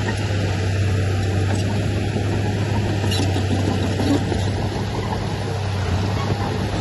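Diesel engine of heavy earthmoving machinery running steadily, with a constant low hum.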